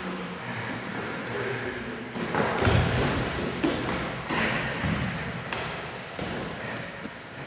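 Bare feet stamping and bodies thudding on dojo mats as two people grapple and try throws: several dull thumps, the loudest about two and a half seconds in.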